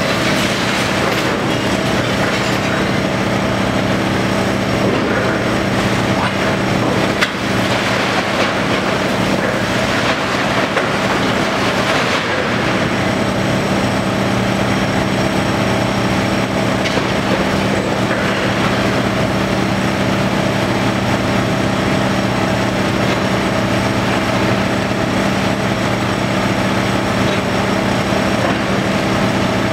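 Tracked demolition excavator running hard with a steady engine and hydraulic drone while its attachment crunches and tears through the concrete, brick and metal of a building, debris clattering down continuously.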